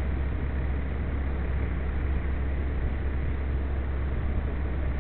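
Steady wind rumble on the quadcopter's onboard camera microphone: a constant low rumble with an even hiss over it.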